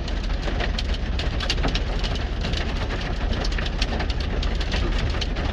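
Hail pelting a semi-truck in dense, irregular ticks, over the steady low hum of the truck's idling engine.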